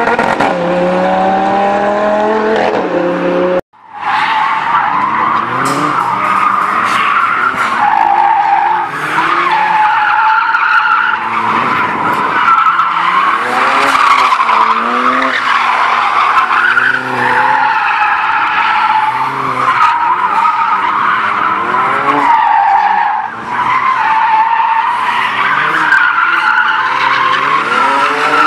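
A car engine revving up hard, cut off suddenly about four seconds in. Then drift cars sliding sideways, engines revving up and down over continuous tyre squeal.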